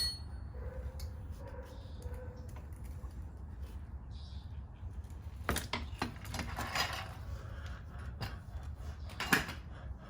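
Hand tools working on a motorcycle's rear axle and chain adjusters: a few scattered metal clicks and clanks, the clearest near the end, over a steady low hum.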